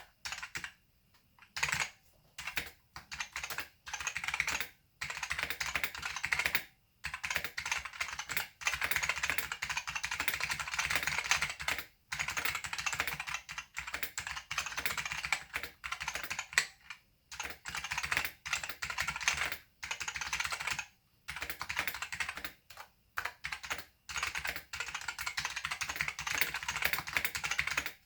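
Typing on a Macway Keyboard Pro with simplified black Alps switches: dense, loud, pingy key clacking in runs of a few seconds, broken by short pauses.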